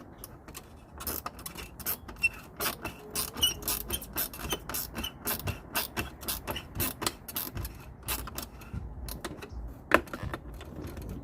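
Small socket ratchet clicking in quick, uneven runs as screws on a loose headlight bezel are tightened, with one sharper click near the end.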